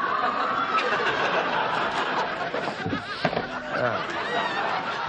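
Sitcom studio audience laughing, one long steady wave of laughter.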